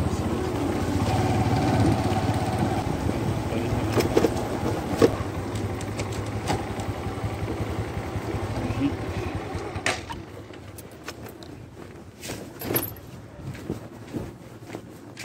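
Bajaj Platina single-cylinder motorcycle engine running under way with a steady hum. About ten seconds in the engine sound drops away, leaving scattered clicks and knocks.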